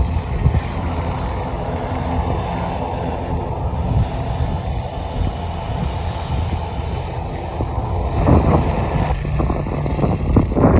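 Aircraft engine noise from a plane climbing away after takeoff, a steady rumble mixed with gusty wind buffeting the microphone that grows stronger near the end.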